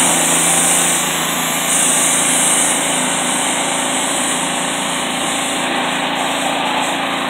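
Pressure washer running steadily, its small engine humming under the hiss of the high-pressure water jet spraying a car; the hiss is loudest in two spells in the first three seconds.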